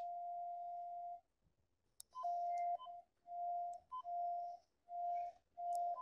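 Cable locator receiver (Radiodetection RD8000) giving its audio response tone to the signal sent down the buried Telstra cable: one steady mid-pitched tone that cuts out about a second in, a faint click, then the same tone coming and going in a string of short tones, several opening with a quick higher blip.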